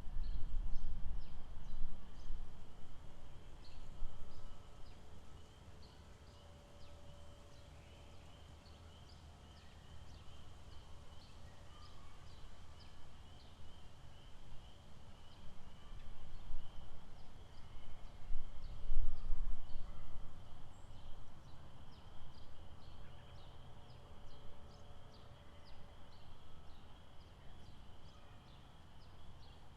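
Lakeside outdoor ambience: a steady high-pitched chorus of small calling animals with rapid, repeated short chirps, over a low rumble that is loud at the start, dies down after about five seconds and swells again about two-thirds of the way in.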